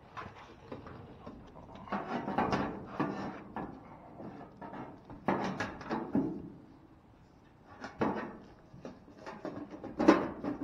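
Dryer cover panel being handled and fitted into place: several bursts of clunks, knocks and rattling, the loudest near the end.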